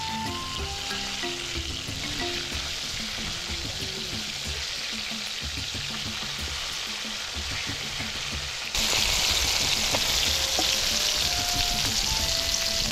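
Flour-coated mackerel sizzling as it deep-fries in hot oil in a wok, being turned with a wooden spatula. The sizzle is a steady hiss that gets louder and brighter about nine seconds in.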